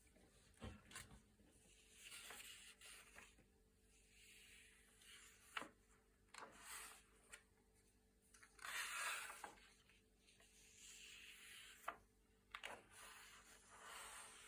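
Thick, glossy paper pages being turned one after another, quiet: soft swishes of the sheets sliding, with a few sharp snaps as pages flip over.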